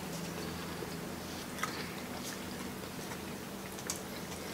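Faint eating sounds, chewing with a few small clicks about one and a half and four seconds in, over a steady low hum.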